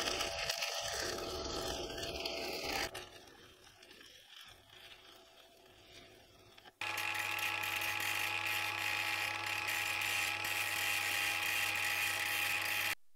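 Electric arc welding on steel at 75 amps DC, a steady crackle and hiss, much quieter after about three seconds. About seven seconds in it cuts to an angle grinder running with a steady whine as its disc grinds down the weld, and the grinding stops abruptly near the end.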